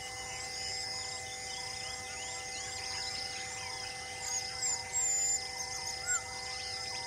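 Birds calling over a steady background of insect-like chirping, with several loud, high whistled bird calls from about four seconds in.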